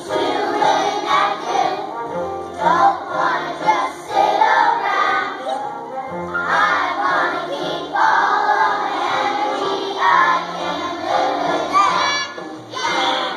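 A kindergarten class singing together in unison, with a musical accompaniment that carries a bass line of held notes.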